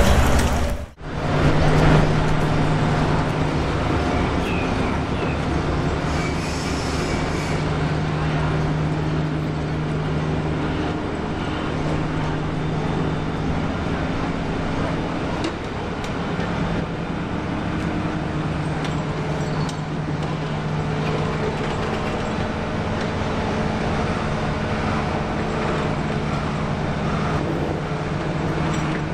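Steady low mechanical hum over an even wash of outdoor traffic-like noise, after a brief drop about a second in.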